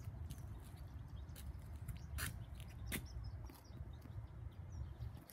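Quiet outdoor ambience: a steady low rumble, a few soft taps, and faint bird chirps.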